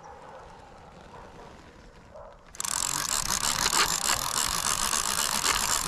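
Baitcasting fishing reel being cranked to reel in line, a fast steady ratcheting clicking that starts suddenly about two and a half seconds in.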